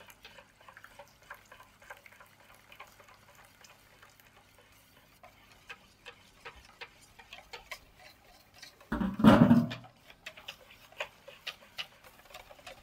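Wire whisk beating pancake batter in a stainless steel bowl, its tines making quick irregular clicks and ticks against the metal as melted butter is poured in. A brief low, voice-like sound comes about nine seconds in.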